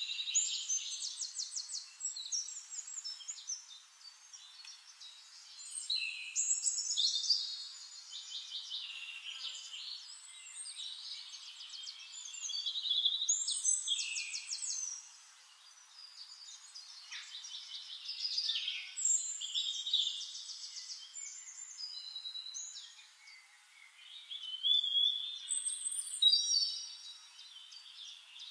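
Several songbirds singing at once: high-pitched songs of rapid trills and chirps that come and go, with short lulls between them.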